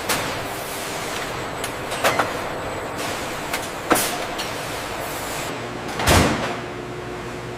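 Steady food-factory machinery noise with several sharp clanks, the loudest about six seconds in, and a low hum joining shortly before it.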